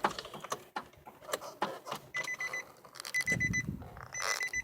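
A car's electronic warning chime beeping in quick bursts of several short high beeps, a burst about once a second, starting about two seconds in, after a few clicks and knocks.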